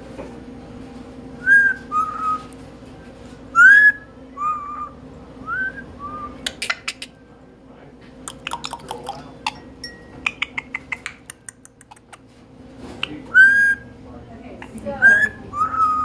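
Red-lored amazon parrot giving a string of short rising whistles, with a run of quick sharp clicks in the middle before the whistles start again.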